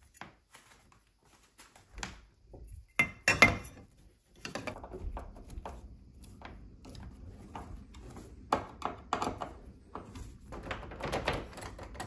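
Metal parts of a smart door lock being handled and fitted against a door: scattered clicks and light knocks, a louder pair of knocks about three seconds in, then many small clicks over soft rubbing.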